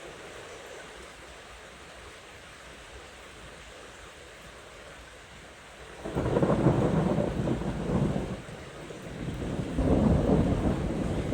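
Steady hiss of rain, then about six seconds in a loud rolling thunder rumble breaks in, eases briefly and swells again near the end.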